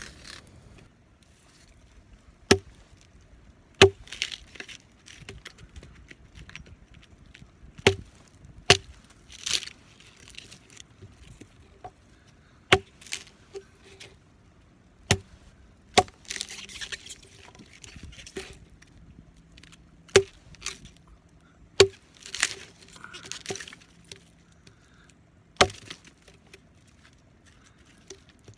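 Small hatchet chopping into wood: about ten sharp, separate strikes, one to four seconds apart, with rustling and scraping of wood between blows.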